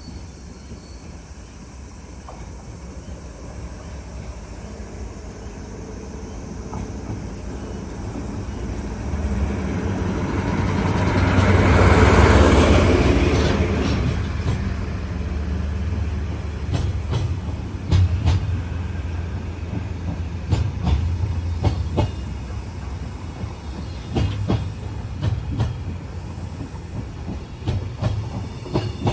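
Diesel-hauled freight train rolling past: the locomotive's engine drone builds to a peak about twelve seconds in, then the wheels click over the rail joints as the wagons go by.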